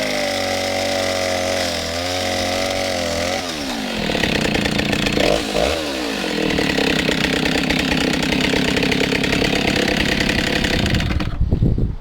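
Stihl 08 S two-stroke chainsaw engine running unevenly at low speed, then revved higher for several seconds with a brief dip, before cutting off near the end. The saw is running again after standing untouched for about 15 years.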